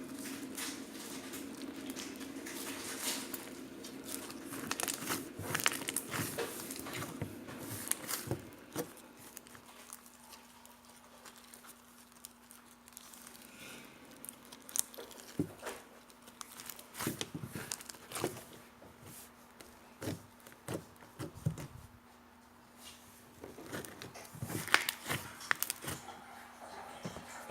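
Jiggly slime being squished and stretched by hand, making irregular small clicks and crackles, busier in the first several seconds and again near the end.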